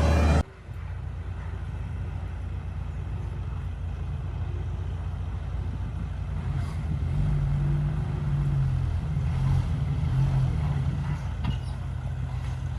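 Heavy diesel earthmoving engine running with a steady low rumble, growing a little louder from about halfway through.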